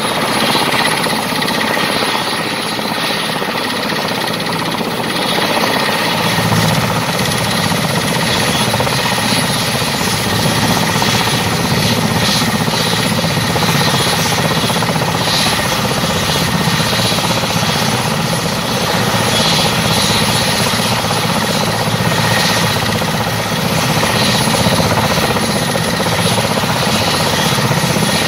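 Mil Mi-17 helicopter running on the ground: its twin turboshaft engines whine steadily over the noise of the turning main rotor. About six seconds in, the low rotor sound grows stronger and stays that way.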